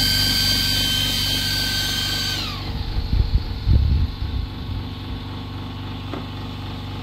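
Small cooling fan on an RC car's electronic speed controller spinning with a steady high whine and hum, then winding down with a falling pitch and stopping about two and a half seconds in. Low knocks and bumps of hands handling the chassis follow.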